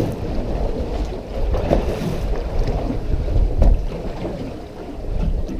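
Wind buffeting the microphone over the wash of choppy sea water against a small boat's hull, an uneven low rumble.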